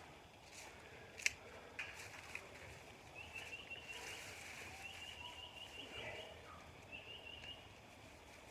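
Hands digging through loose soil in a raised garden bed, with scattered scrapes and sharp clicks, the loudest about a second in. A bird sings a high, rapid trill of repeated notes in the background, stopping near the end.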